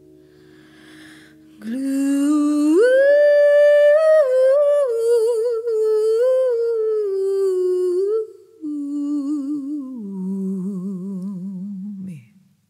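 A held keyboard chord fades, then a woman's voice sings a slow wordless melody on its own. It rises to a long held note, then steps down to a low note with a wide vibrato and cuts off near the end.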